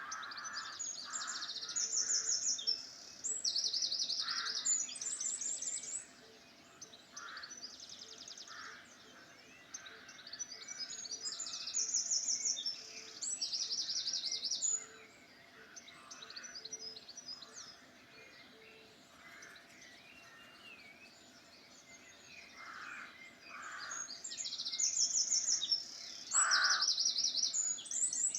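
Several songbirds singing in a dawn-chorus-like mix. High, rapid trilled phrases about a second long come every couple of seconds, with shorter, lower calls in between. The song thins out for a few seconds past the middle, then picks up again near the end.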